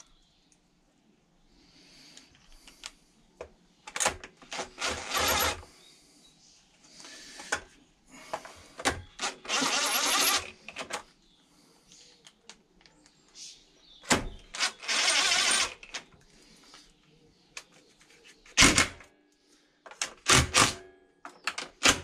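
Cordless drill-driver running screws into a lawnmower's plastic engine cover in three short runs of about a second each, followed by a few sharp clicks near the end.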